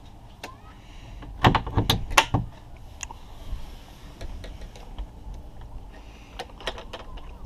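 Metal clicks and knocks of a solar panel's mounting hinge being worked loose by hand with a small screwdriver. A burst of sharp clicks comes about one and a half to two and a half seconds in, then a few lighter ticks near the end.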